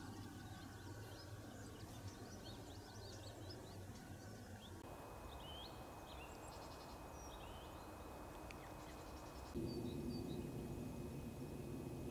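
Outdoor field ambience with many short bird chirps and calls. About five seconds in the background changes abruptly to a quieter one with a few scattered chirps and a thin steady high tone, and near ten seconds in it jumps to a louder low hum.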